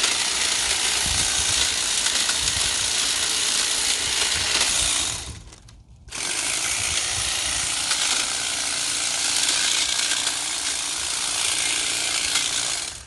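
Cordless hedge trimmer running and cutting through brush and small branches, a steady rattling chatter of reciprocating blades. It stops for about a second midway and then starts again.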